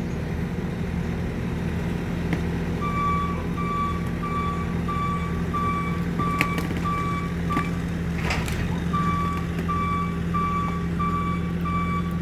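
A heavy work vehicle's backup alarm beeping about twice a second over its steadily running engine; the beeping stops for a couple of seconds twice and starts again. A short crackling noise comes about two-thirds of the way through.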